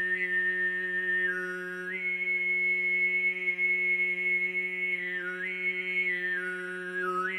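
Tuvan sygyt throat singing: one man's voice holds a steady low drone while a single high overtone above it carries a melody. The overtone steps between a few pitches and dips and rises again about five seconds in and near the end.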